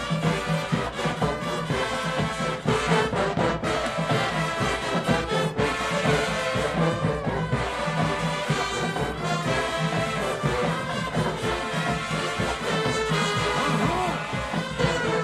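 Marching band playing at full volume: a brass section, with trombones and trumpets, over steady drum hits.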